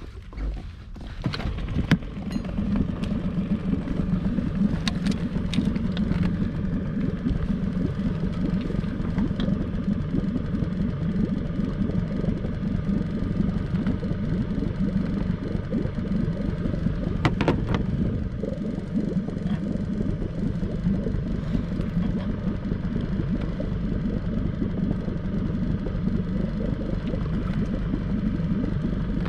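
Small outboard motor on an inflatable boat picking up about two seconds in, then running steadily, with a few sharp knocks along the way.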